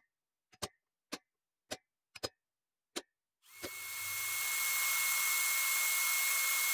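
A series of sharp metal taps about half a second apart as a center punch marks hole positions on a 1/8-inch aluminum plate. About three and a half seconds in, a cordless drill starts and runs steadily with a high whine, boring a screw hole through the aluminum plate.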